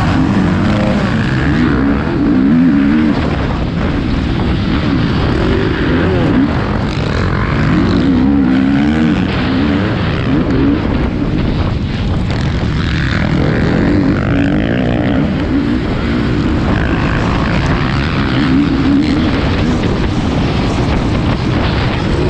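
Motocross bike engine at race speed, the note rising and falling over and over as the rider works the throttle around the track.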